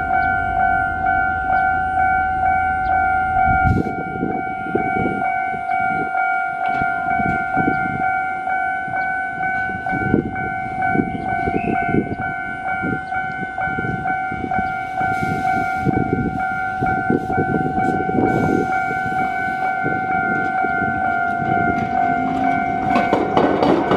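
Level-crossing alarm ringing steadily at a railway diamond crossing where a tram line crosses the railway at grade. From about four seconds in, a rail vehicle's wheels knock irregularly over the crossing's rail joints, thickening into a denser clatter near the end.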